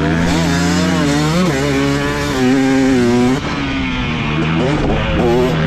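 Motocross dirt bike engine on the track, the throttle opened and closed so the pitch rises and falls. It is loudest a little before halfway, then the throttle is chopped suddenly and the engine picks up again near the end.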